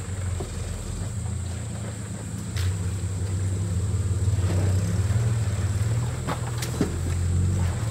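Toyota 80 series Landcruiser engine running at low revs as the truck crawls over creek rocks, with a steady low hum that swells in the second half and a few sharp clicks and knocks from tyres on rock.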